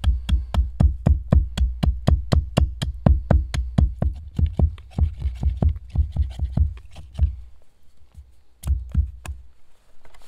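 Axe chopping a thin wooden peg held upright on a chopping stump: quick, regular knocks of the blade into the wood, about four a second for some seven seconds. After a short pause, three more knocks come near the end.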